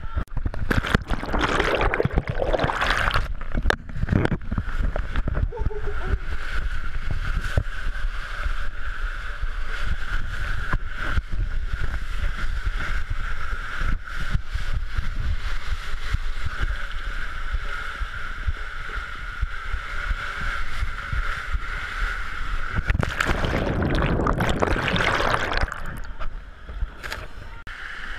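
Water rushing and sloshing around a rider sliding down an enclosed water-slide tube, heard close up, with louder surges about two seconds in and again near the end.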